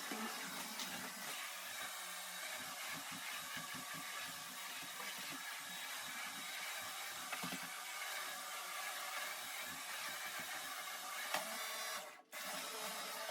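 Steady whirring hiss of a household vacuum cleaner running, with a brief dropout near the end.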